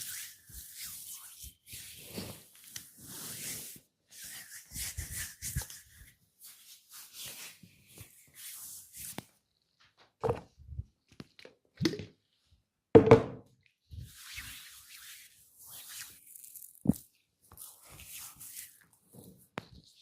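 Hands rubbing and kneading oiled skin and hair in a head and upper-body massage: a soft hissing rub in short strokes, broken by a few sharp thumps, the loudest about two-thirds of the way through.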